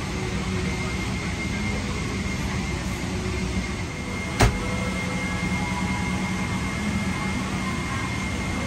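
Steady rush and hum of a Boeing 777-300ER's cabin air conditioning while parked at the gate, with a faint high whine running through it. One sharp click sounds about four and a half seconds in.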